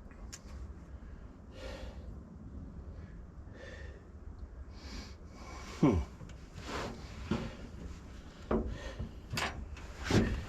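A few breaths, then a run of knocks and scrapes as steel fifth-wheel hitch parts are handled and fitted. The first clunk, about six seconds in, is the loudest.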